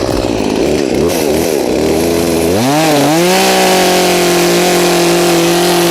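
Chainsaw engine wavering at part throttle, then revving sharply up about two and a half seconds in and holding steady at high speed while making the back cut that fells a notched tree.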